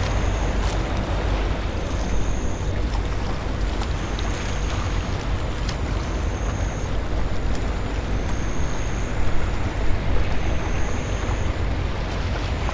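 Wind rumbling on the microphone over a steady outdoor hiss of open water, with small gusts. A short, faint high-pitched tone repeats about every second and a half.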